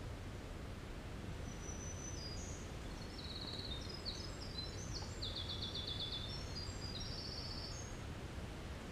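Winter wren singing one long, rapid song of varied high notes and trills that lasts about six seconds, over a steady low background rumble.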